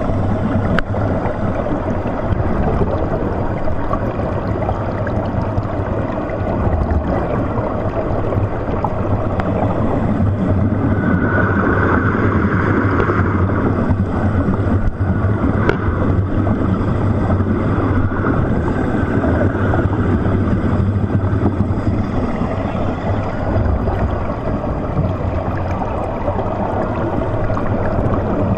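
Muffled underwater sound heard through a GoPro's waterproof housing: a steady low hum under a constant rushing wash. About eleven seconds in, a brighter hiss swells for a few seconds, then fades back.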